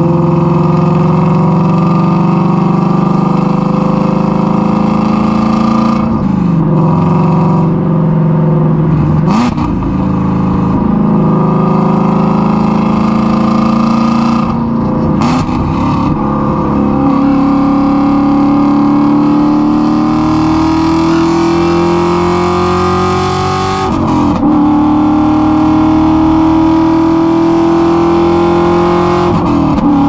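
Straight-piped Ford Mustang Shelby GT350's 5.2-litre flat-plane-crank V8 with long-tube headers, heard through a microphone at the exhaust while driving. The engine note climbs slowly under light throttle and drops back several times between gears.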